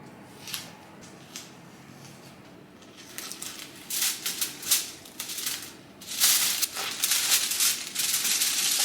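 Masking tape being peeled off a painted door frame, crackling and rustling in short bursts that start a few seconds in and run almost continuously over the last few seconds.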